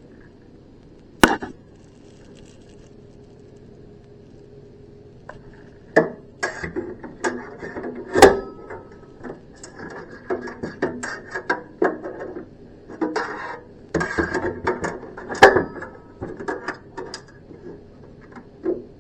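Irregular clicks, knocks and clatter of hard parts as the machine's housing and tools are handled to retrieve a dropped screw. One sharp click comes about a second in, then a dense run of knocks and rattling from about six seconds in until near the end.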